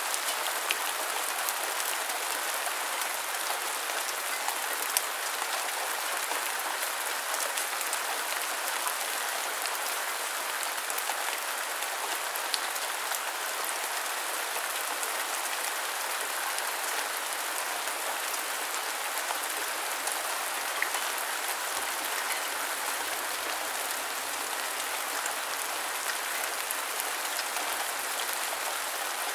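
Steady rain falling: an even hiss, with scattered single drops ticking now and then.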